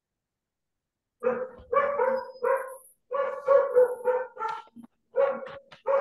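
A dog barking repeatedly in a quick run of barks, starting about a second in.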